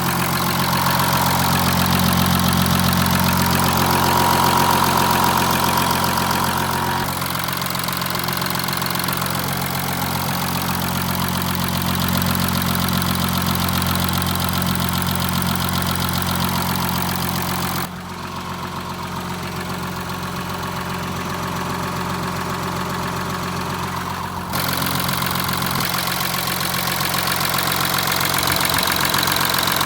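Porsche Macan S Diesel's 3.0 V6 turbodiesel running steadily at idle with an unusual noise, which the owner suspects comes from the timing chain. About two-thirds of the way in, the sound turns duller and quieter for about six seconds, then comes back.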